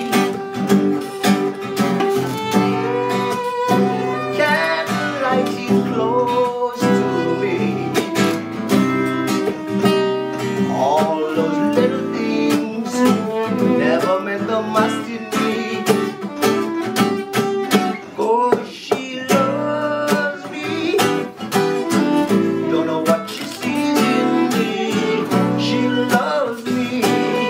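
Acoustic guitar strumming chords while a fiddle plays a melody over it, with slides between notes.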